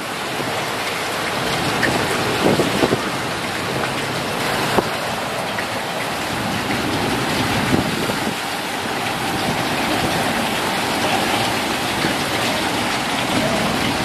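Typhoon storm of heavy, wind-driven rain, a dense steady rush of noise with a few brief knocks.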